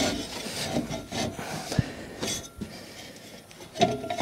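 Scraping and rubbing with scattered light knocks as the Mack truck's plastic cooling fan is worked into place on its new fan clutch in the engine bay.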